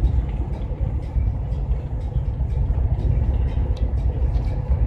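Steady low engine and road rumble inside the cab of a GAZelle van cruising on a highway.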